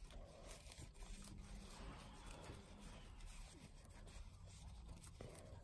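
Near silence with faint rustling of satin ribbon handled by hand as the gathering thread is drawn up.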